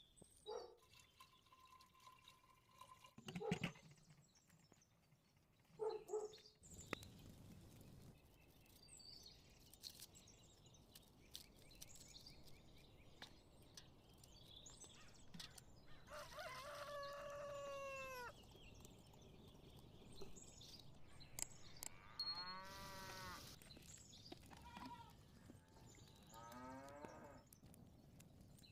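Faint rural background with livestock calling three times: one long call falling in pitch around the middle, then two shorter wavering calls near the end. A couple of short knocks sound a few seconds in.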